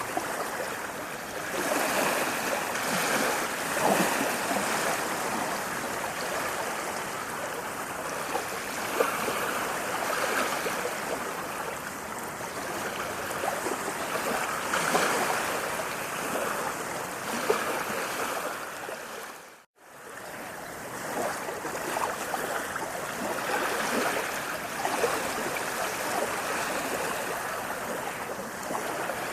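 Running water flowing steadily, with gentle swells and small splashes throughout. About two-thirds of the way through it cuts out for an instant and fades back in.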